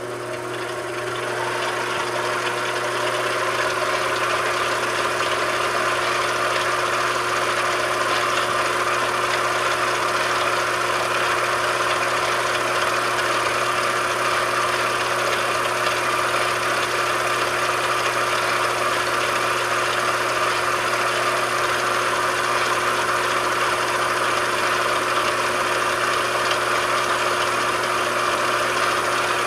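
Machine tool running steadily under power: a constant hum with a fixed tone and a hiss-like noise that grows louder over the first few seconds, then holds level.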